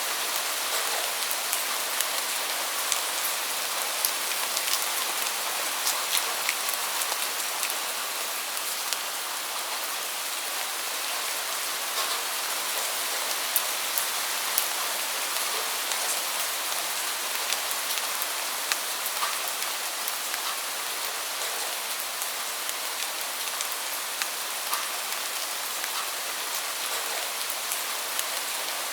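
Steady rain falling: an even hiss sprinkled with many short, sharp drop ticks.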